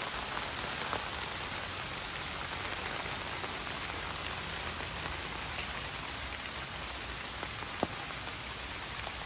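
Steady rain falling, many small drop ticks heard through the hiss, with one sharper tick near the end.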